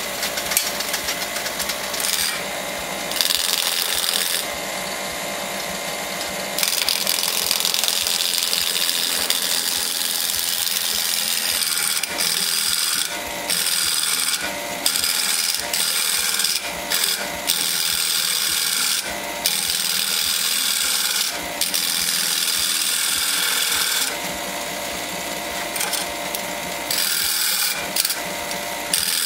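Wood lathe spinning a 4x4 wooden blank while a hand-held turning tool cuts its end down to a round. The cutting noise starts and stops every second or two as the tool is pressed in and eased off.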